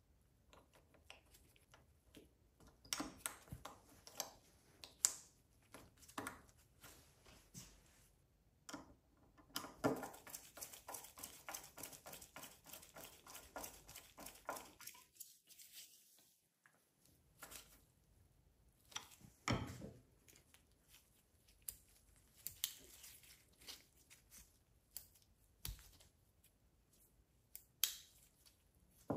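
Faint clicks, taps and rustles of small carburetor parts and tools being handled on a workbench, with a run of quick ticking in the middle.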